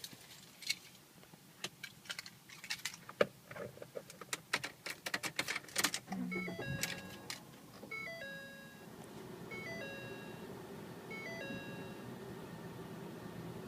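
Sharp clicks and rattles, then an electronic chime of a few stepped notes that repeats about every one and a half seconds, with a steady low hum setting in about nine seconds in.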